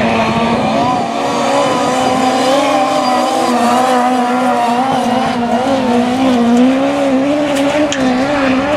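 Several autograss race cars racing on a dirt oval, their engines held at high revs with the pitch wavering slightly up and down as the drivers work the throttle.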